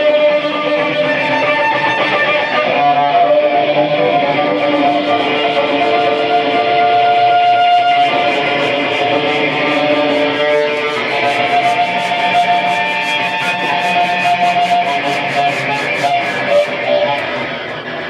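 Cello bowed in free improvisation, holding long notes that shift in pitch. From about a third of the way in, a fast, even, high scratching runs alongside it until near the end.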